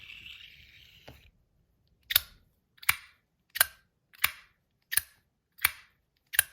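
Metal track-slider fidget toy being slid back and forth, giving a sharp click about every 0.7 seconds as the slider snaps into the detent at each end of its track. A steady hiss fades out about a second in, before the clicking starts.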